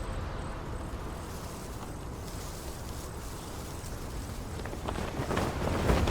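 Ambient insects chirring steadily in a soundtrack bed. Near the end, a quickening run of horse hoofbeats draws closer and grows louder.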